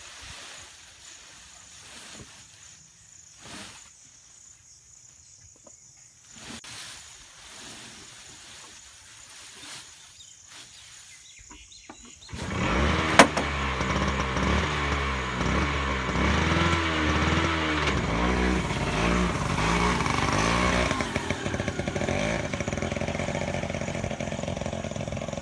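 Faint rustling of grass bundles being pushed into the back of an auto-rickshaw. About halfway through, the three-wheeler's small engine starts suddenly and runs, its pitch rising and falling as it pulls away, then steadier and growing quieter near the end.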